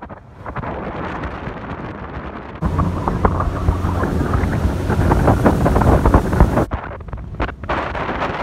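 Wind rushing over the microphone on a moving motorboat, with the boat's engine and water noise beneath. It gets suddenly louder about two and a half seconds in and drops back again near seven seconds.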